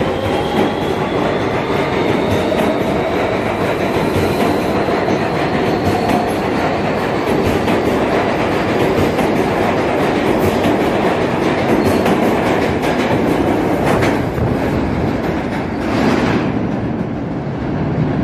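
An R160B Siemens subway train's traction motors whine as it accelerates out of the station, the tones climbing slowly in pitch over the first several seconds. Its cars rumble past with wheels clacking over rail joints, including a couple of sharper knocks near the end.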